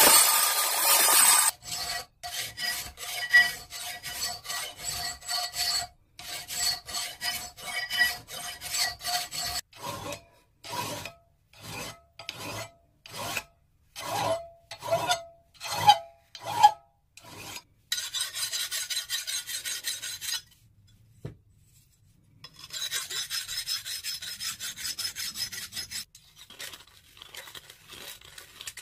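An Evolution chop saw cutting through steel plate, which stops about a second and a half in. Then a hand file rasps back and forth on the steel plate's edge: fast regular strokes at first, then slower separate strokes, then more rasping after a short pause.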